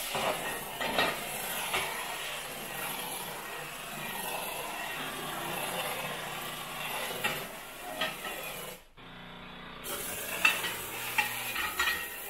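Steam cleaner's nozzle blowing a steady hissing jet of steam, with a few sharp knocks and clatters from utensils against the counter. The steam cuts out for about a second around two-thirds of the way through, then starts again.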